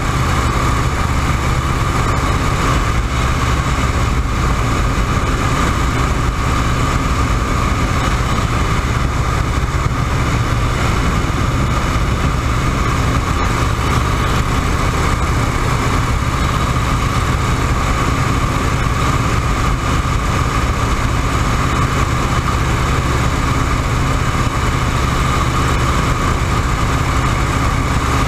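WACO YMF-5 biplane's Jacobs seven-cylinder radial engine and propeller running steadily in cruise flight, with an even, unchanging drone.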